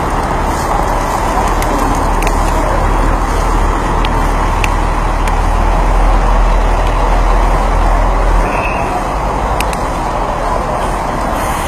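Trucks and other traffic moving along a flooded, muddy street: steady engine and road noise, with a deep engine rumble that fades away about eight seconds in.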